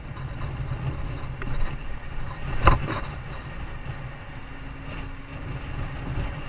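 Steady low rumble of a running vehicle, with one sharp knock a little under halfway through.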